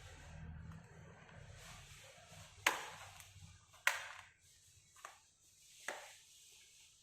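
Plastic retaining clips on an Asus A1400E laptop's bottom cover snapping loose as the case is pried open: four sharp clicks about a second apart.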